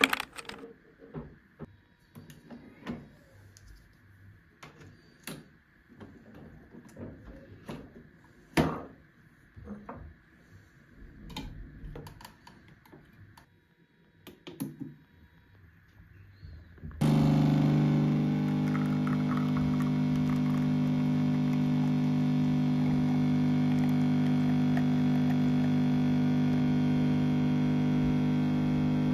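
Light scattered clicks and knocks of things being handled. About halfway through, an electric appliance's steady, even-pitched hum starts suddenly, runs unchanged, and cuts off at the end.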